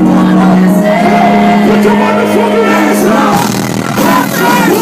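Loud live concert music through a club PA, a held low note that drops out about three and a half seconds in, with voices singing and shouting over it.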